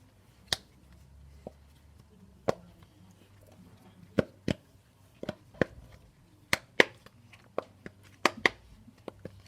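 Simple Dimple fidget toy's plastic buttons being pressed one after another, giving a string of short, sharp clicks at irregular spacing. The clicks are sparse at first and come quicker and louder from about halfway.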